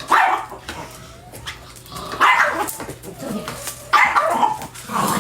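Dogs barking in short loud bursts, about four of them roughly every two seconds.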